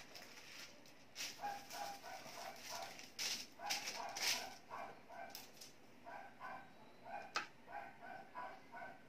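Thin kite paper rustling as the sail is handled and smoothed on the floor, with a sharp click about seven seconds in as thin bamboo sticks are picked up. Behind it, an animal gives short repeated calls, several a second.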